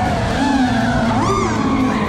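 A Nissan 240SX (S14) and a Corvette drifting in tandem, their engines revving up and down over a steady noise of tyres skidding.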